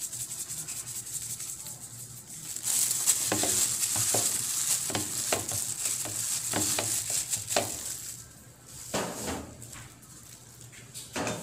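A hand in a thin plastic glove rubbing salt into a raw butterflied milkfish on a plate: crinkling and rustling of the glove against the wet flesh, loudest for about five seconds in the middle, then a few softer rubs near the end.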